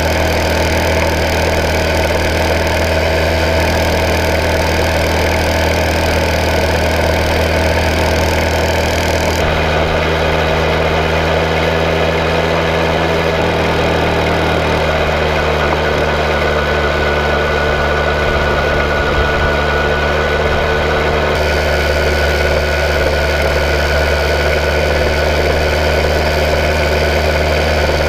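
Small finned single-cylinder engine of a 1901 Indian Camelback replica motorbike running steadily under way, a constant engine note with hiss over it. The higher hiss thins out for about twelve seconds in the middle, then comes back.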